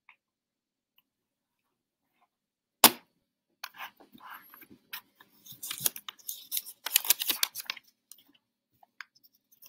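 A sharp knock about three seconds in, then several seconds of clattering and rustling as hard plastic trading-card cases are handled and moved about on a counter.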